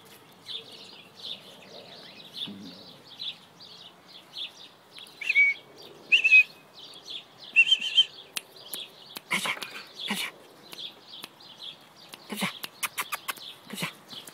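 Small birds chirping over and over in the background while Labrador puppies play. Three louder short squeaky calls come about five to eight seconds in. In the second half there is a string of sharp clicks and knocks as the puppies scrabble at a wooden cart and a stick.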